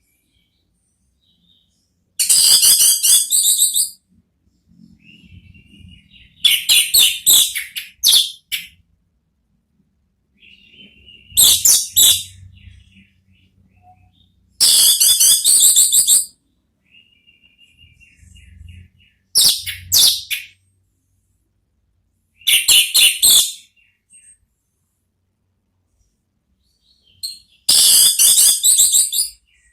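Orange-headed thrush (anis merah) singing its loud full song (ngeplong): seven loud, fast phrases of about a second and a half each, a few seconds apart, with soft quiet twittering between them.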